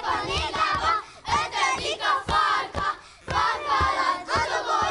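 A group of children chanting loudly in unison in short, rhythmic phrases with brief pauses between them, with dull thumps in time underneath.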